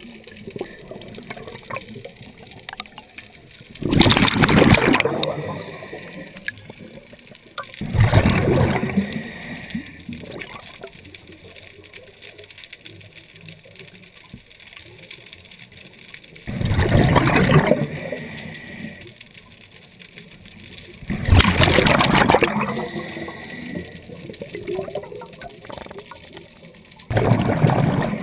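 A scuba diver's exhaled breath bubbling out of the regulator underwater: five bursts of bubbles, each about a second long and several seconds apart, with quieter gurgling between them.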